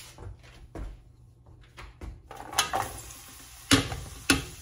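Chopped onions tipped from a metal tray into a pot of hot oil: a few sharp metal-on-metal knocks, the two loudest near the end, as the oil begins to sizzle under the onions.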